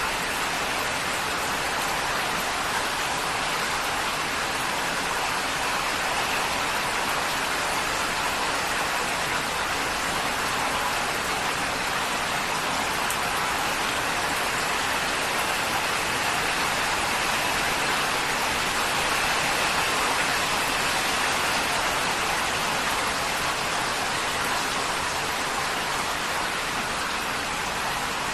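Heavy rain falling steadily on a corrugated tin roof, a dense, even patter with no single drops standing out.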